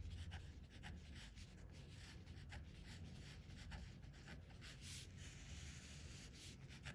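Faint scratching of a marker pen writing on paper, in quick short strokes several times a second.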